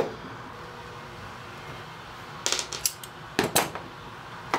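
Metal hand tools (a pliers wrench and a combination wrench) set down on a workbench, clinking and knocking: a quick cluster of clinks about two and a half seconds in, then two sharper knocks about a second later, and one more click near the end.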